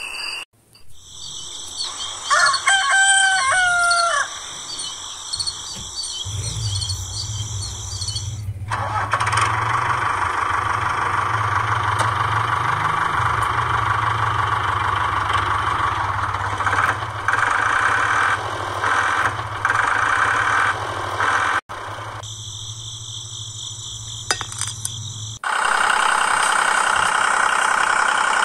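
A rooster crows once about two to four seconds in. Then an engine-like running sound sets in with a steady low hum and carries on, shifting to a rougher, louder running sound about 25 seconds in.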